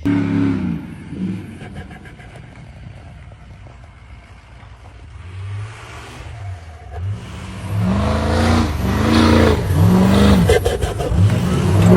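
Diesel truck engine revving hard, its pitch rising and falling several times in quick succession during the second half, with a sharp burst of revs right at the start.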